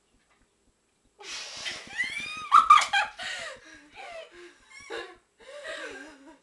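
Two girls laughing hard in high, squealing giggles, starting after about a second of quiet and loudest a couple of seconds in, then trailing off into breathy chuckles.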